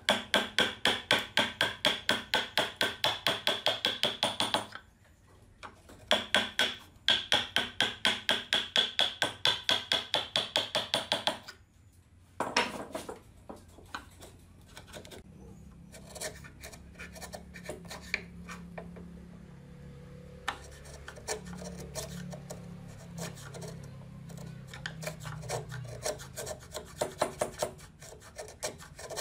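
A hammer rapidly taps a chisel down into the end grain of a board held in a vise, about five blows a second, in two runs of about five seconds each, then one more blow. After that the chisel is worked by hand, scraping and paring shavings out of the narrow dovetail socket with light ticks and rubbing.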